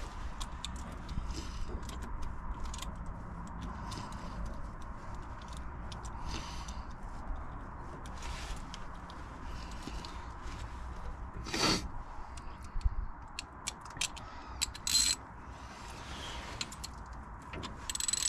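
Scattered metallic clicks and handling noises of hand tools as a socket is fitted to a harmonic balancer puller on the engine's crank pulley, with a sharper click about two-thirds of the way through. A steady low rumble sits underneath.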